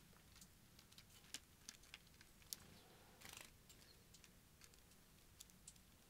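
Near silence with faint, irregular small clicks and ticks, and a brief soft rustle about three seconds in.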